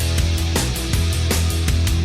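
Background instrumental music with a steady driving drum beat and bass line.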